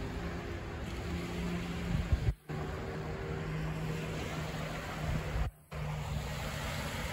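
Steady outdoor rumble with a low, even engine drone from a small motorboat running across the river. The sound cuts out briefly twice.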